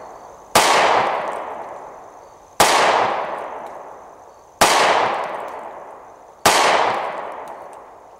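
Dan Wesson ECO compact 1911 pistol in .45 ACP firing 230-grain FMJ rounds, four shots about two seconds apart. Each shot is sharp and loud and trails off over about two seconds.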